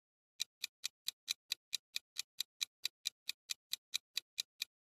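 Countdown-timer sound effect: a fast, even clock-like ticking of about four to five ticks a second. It starts about half a second in and marks the thinking time for a quiz question.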